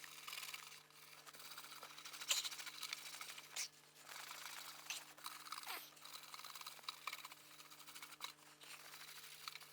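Faint back-and-forth hand rubbing of an abrasive compound on a plastic headlight lens, scratchy and uneven, over a steady low hum.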